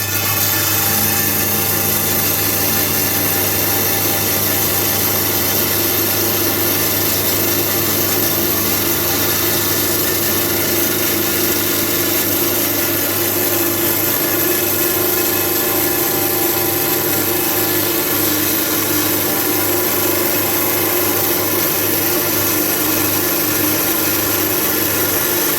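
Electric rock saw running steadily as it cuts through a stone, a thunderegg being sliced open, with a constant motor hum under a grinding hiss.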